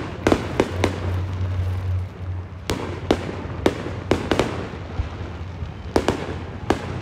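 Aerial fireworks bursting overhead: about ten sharp bangs in quick clusters, three in the first second, five in the middle and two near the end, over a steady low rumble.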